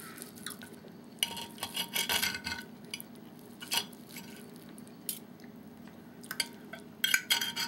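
Metal knife and fork scraping and clinking on a ceramic plate while cutting a cooked lamb chop. A cluster of scrapes about a second in, a few single clicks in the middle, and another cluster near the end.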